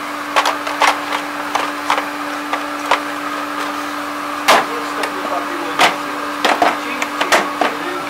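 Irregular sharp clicks and knocks of hands handling a black plastic case and its contents, over a steady low mechanical hum.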